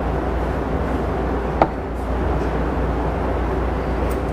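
An engine running steadily, with one sharp click about one and a half seconds in.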